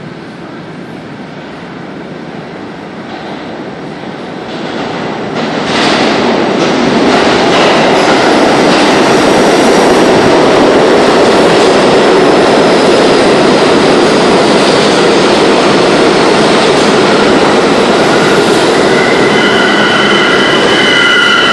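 Eight-car R32 subway train approaching and pulling into an underground station. A rumble grows louder for the first six seconds or so, then the cars' wheels on the rails make a steady loud rush as they pass the platform. High steady squealing comes in near the end as the train slows.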